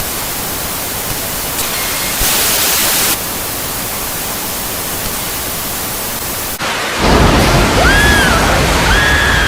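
Broadcast static: a steady hiss of white noise standing for a lost signal, a little brighter for about a second near two seconds in. About seven seconds in it gives way to a louder rumble with short rising-and-falling wails over it.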